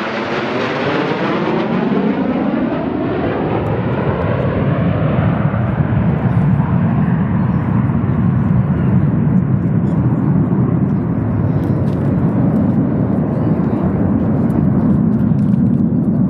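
Loud engine noise of an aircraft flying past. A sweeping, falling pitch over the first few seconds gives way to a steady low rumble.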